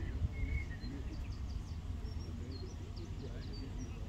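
Open-air field ambience: a low, uneven rumble of wind on the microphone, with small songbirds chirping and giving short trills.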